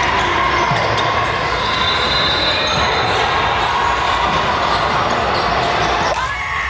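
A basketball being dribbled on a hard court, against the steady background chatter of players and spectators in a gym.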